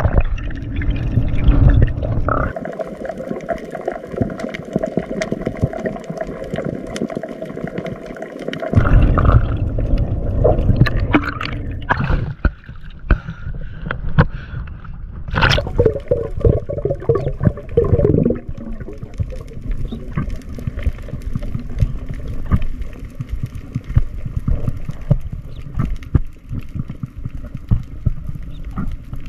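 Water sloshing and gurgling against a waterproof camera housing as it moves underwater and at the surface, with many small knocks and pops.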